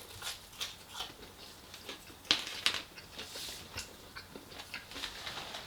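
Close-miked eating sounds: crunchy bites and chewing of fried chicken, a string of short crackly crunches, the sharpest two about two and a half seconds in.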